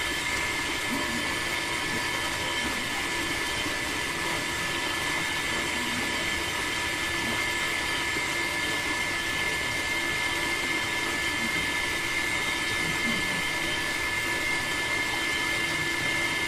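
Small battery-powered DC motor water pump running steadily, a constant high-pitched whine as it draws water through a clear plastic tube.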